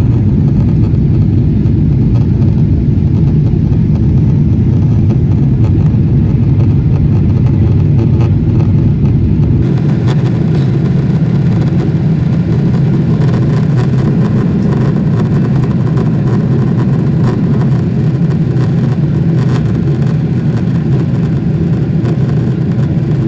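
Loud, steady rumble of a Boeing 777-300ER's engines and airflow heard inside the economy cabin. About ten seconds in, the deepest rumble drops away and more hiss comes through.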